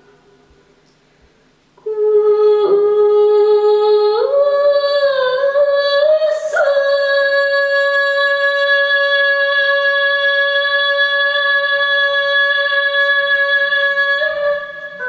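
A Tibetan woman singing unaccompanied. After a brief pause, her voice climbs in slow steps and settles into one long held note.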